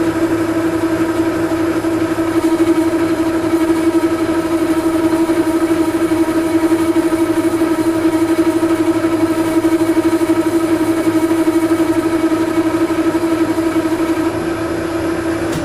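Weiler Matador metal lathe running at steady speed with an even whine from its drive, while the tool takes a very light cut to remove burr from the side of a steel gear. The whine drops away at the end as the spindle stops.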